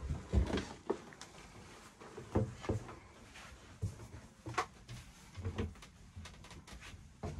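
Irregular knocks and bumps in a small enclosed space, about a dozen short ones spread unevenly over several seconds.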